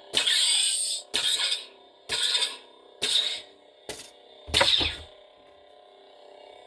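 Proffie 2.2 lightsaber sound board playing a steady saber hum through its speaker, broken by six sharp motion-triggered effect bursts about a second apart. The last, about four and a half seconds in, is the loudest and carries a deep thump.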